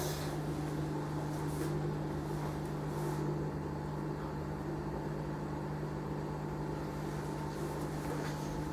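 Siemens semi-integrated dishwasher running steadily in the first seconds of its intensive programme: an even, low machine hum.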